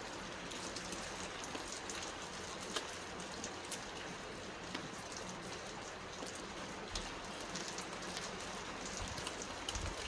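Steady rain falling on a wet paved alley: an even hiss with scattered sharper drips.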